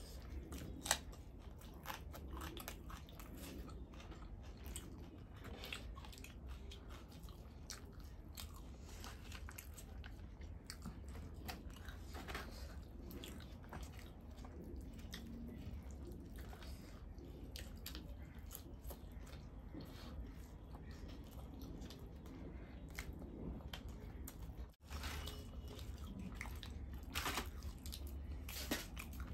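Close-miked eating sounds of chole bhature and raw green chillies: chewing, bites and crunches, with many small mouth clicks.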